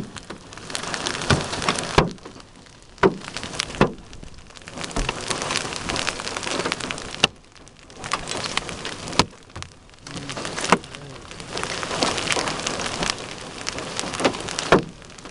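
Hail just over golf-ball size falling with heavy rain, heard from inside a vehicle: a steady hiss of rain broken by irregular sharp knocks of hailstones striking, several of them loud.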